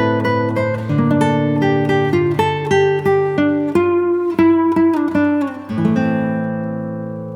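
Background music: acoustic guitar picking a melody over held bass notes, ringing out near the end.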